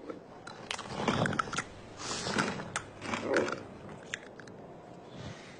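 Cartoon camel chewing and crunching on a paintbrush: crunchy bites in three louder bouts, with sharp clicks between.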